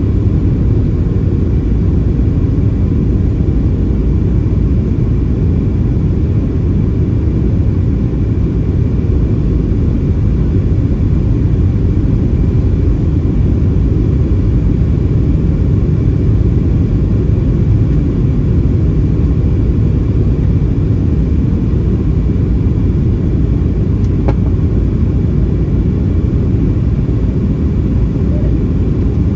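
Steady low cabin rumble of a Boeing 737-700 on approach, from its CFM56-7B engines and the airflow, heard inside the cabin over the wing, with a faint steady tone above it. A single brief click comes late on.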